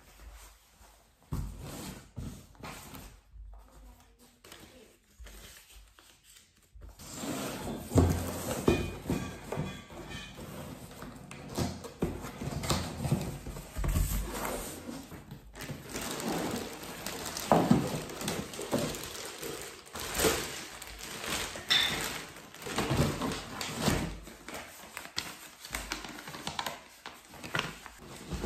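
Unboxing a cardboard IKEA flat-pack furniture box by hand: irregular thuds and knocks of cardboard and parts, with rustling of cardboard and plastic wrapping, louder and busier after the first few seconds.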